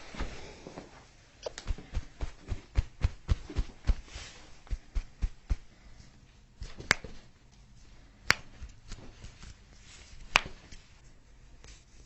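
Chiropractic adjustment sounds: a run of quick soft thumps, then three sharp cracks spread over about three and a half seconds as joints are cracked.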